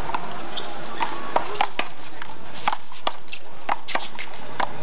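Sharp slaps of a small rubber handball, struck by hand, hitting the concrete wall and bouncing on the concrete court, about eight irregular smacks.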